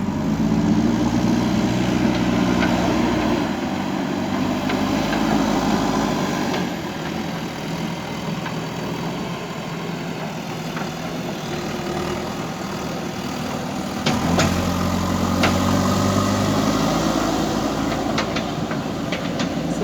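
JCB backhoe loader's diesel engine working under load, easing back to a lower speed for several seconds in the middle, then revving up again about fourteen seconds in. Several sharp knocks sound near the end.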